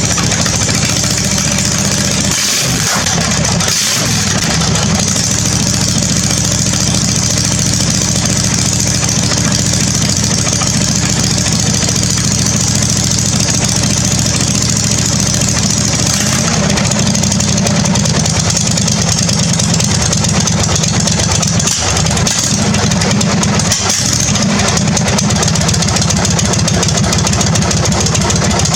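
Husqvarna zero-turn mower's V-twin engine running loud and steady through a short, open makeshift exhaust pipe, just after being started. Its note shifts about 16 seconds in.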